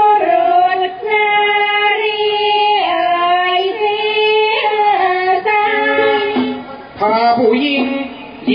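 Traditional Thai classical singing: a high voice, likely a woman's, holding long notes that slide from one pitch to the next, with a brief dip near the end before a lower line picks up.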